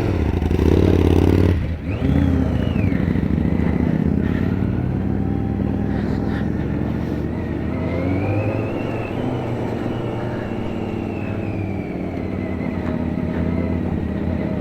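Motorcycle engine running under throttle, revved hard for the first second and a half, then pulling steadily with its pitch slowly rising and falling.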